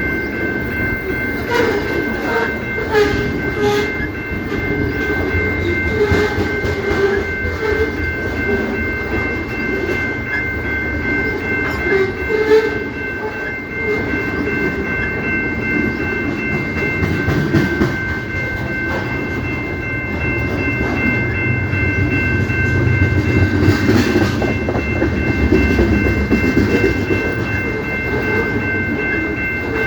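Canadian Pacific train rolling past with a steady low rumble and wheels clacking over the rail joints. Over it runs a continuous high-pitched tone of several notes, unbroken throughout.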